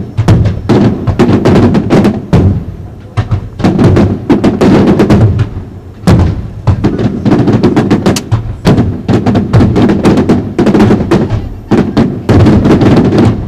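Bruscella Fireworks aerial shells bursting in a dense, nearly continuous barrage: loud overlapping bangs mixed with crackle, with a few brief lulls.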